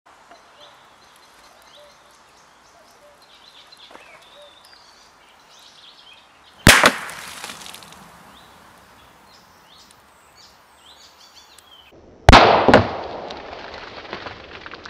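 Aluminium Coca-Cola can, heated by sunlight focused through a giant Fresnel lens, bursting with a sharp pop, then hissing as the soda sprays out and dying away. This happens twice, about five and a half seconds apart. Faint bird chirps in the background.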